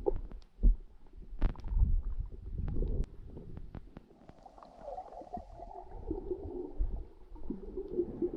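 Muffled underwater sound from a camera carried by a swimmer: low rumbling water surges with sharp clicks and knocks in the first few seconds, then a wavering, muffled hum from about halfway through.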